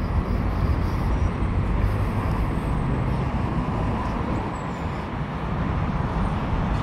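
Steady city street noise: a low rumble of road traffic passing on a busy avenue.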